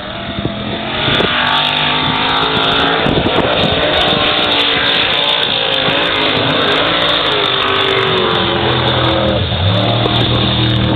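Formula off-road jeep's engine running hard at high revs as it skims across a river, the pitch rising and falling. The sound grows louder about a second in and stays loud.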